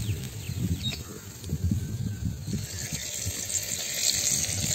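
Outdoor background noise with a few short bird chirps in the first second and a hiss that swells about halfway through.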